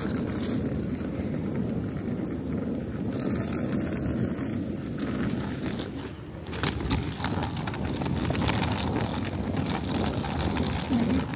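Rolling suitcase wheels rumbling over a rough pebbled concrete sidewalk, with more clicking and clattering from about halfway through.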